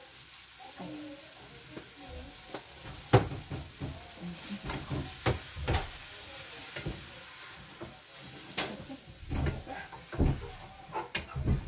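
Food sizzling in a pan while being stirred, a utensil knocking and scraping against the pan many times, the loudest knock about three seconds in.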